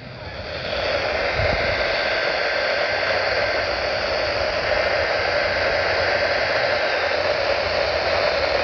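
Radio static: a steady hiss from a weather radio receiver with no clear signal, swelling in over the first second and then holding level, with a few faint steady tones buried in the noise.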